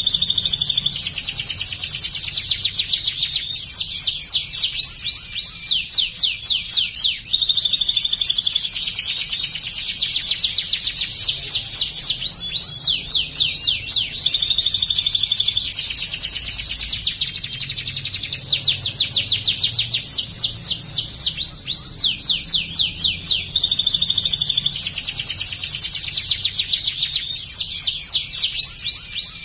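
Domestic canary singing without pause in fast trills of rapidly repeated sweeping notes, switching phrase every second or two: a canary song trained on bar-winged prinia (ciblek) phrases and delivered hard.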